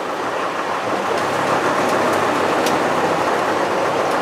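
Vintage bus on the move, heard from inside the passenger saloon: steady engine running and road noise, growing slightly louder as it goes.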